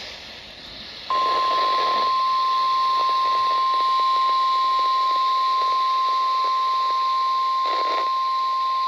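NOAA Weather Radio 1050 Hz warning alarm tone: one steady high tone that comes on about a second in and holds, received over the radio with a hiss of static. The tone signals that a weather warning is about to be broadcast.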